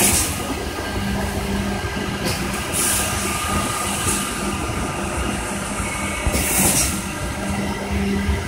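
Thermoforming packaging machine running through its cycle: a steady mechanical clatter and hum, broken by a few short hisses.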